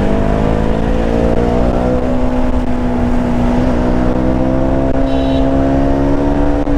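KTM Duke 200's single-cylinder engine pulling steadily in gear, its revs climbing slowly and evenly as the bike gathers speed, over a low rumble of wind and road noise. A brief high beep sounds about five seconds in.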